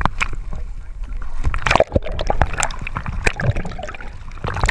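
Choppy water sloshing and slapping against the side of a Hydra-Sports boat's hull, with irregular splashes close to the microphone over a steady low rumble.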